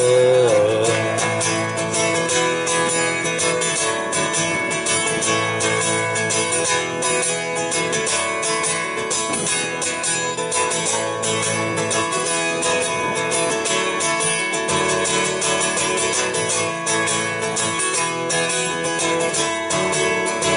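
Acoustic guitar strummed in a steady rhythm, a solo instrumental break with no singing. A held sung note fades out in the first half second.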